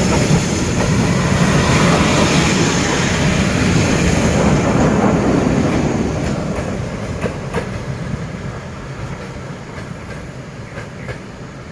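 Freight train boxcars rolling past close, a loud rumbling rush with the clickety-clack of wheels over the rails. After about six seconds the sound fades away, leaving scattered sharp wheel clicks.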